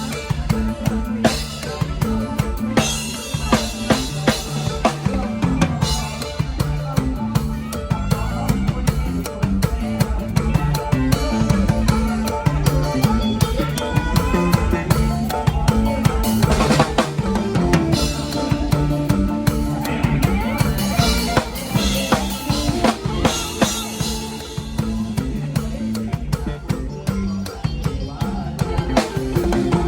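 Lively Isan toei lam band music: a drum kit keeps a steady bass-drum and snare beat under a pulsing bass line and a melody.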